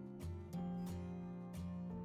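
Background music: held instrumental notes over a steady beat.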